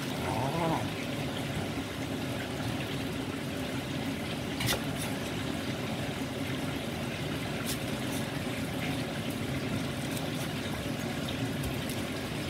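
A kitchen knife knocking on a wooden cutting board as leafy greens are chopped: a few sharp knocks over a steady hissing background noise.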